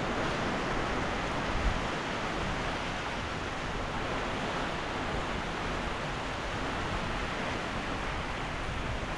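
Heavy hurricane rain pouring steadily, with one brief low thump about a second and a half in.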